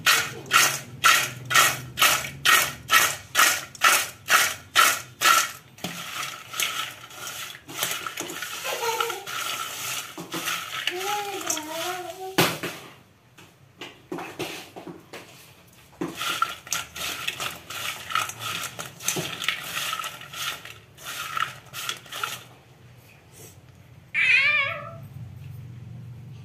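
Fried kurkure sticks being tossed with spice powder in a stainless steel bowl: a sharp rattle of the pieces against the steel, repeated about two to three times a second, which stops and then starts again partway through.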